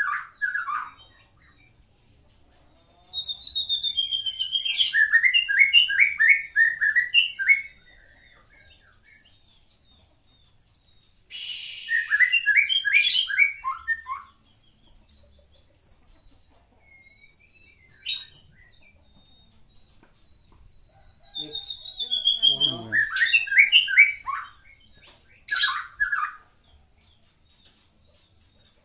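Caged white-rumped shama (Medan murai batu) singing: several loud phrases of quick whistles and rapid rising and falling trills, separated by pauses of a few seconds. The song is packed with mimicked calls of other birds (isian).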